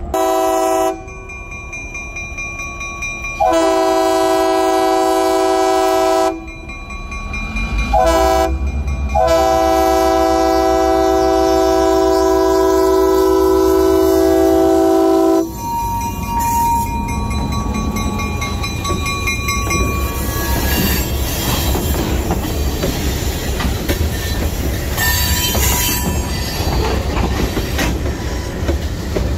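EMD GP9R diesel locomotive blowing its air horn for a grade crossing: four blasts, the third short and the last held about six seconds. After the horn stops, the locomotive passes and the tank cars roll by with steady clattering wheel noise on the rails.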